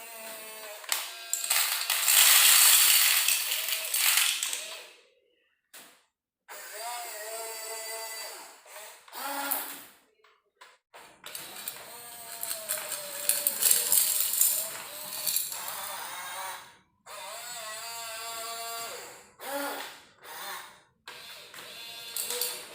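Small electric motors and plastic gearboxes of radio-controlled truck and excavator models whining and grinding in several short runs, their pitch rising and falling with throttle, with abrupt stops in between.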